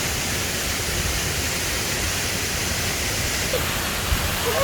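Tall waterfall pouring down after heavy rains, a steady, even rush of falling water.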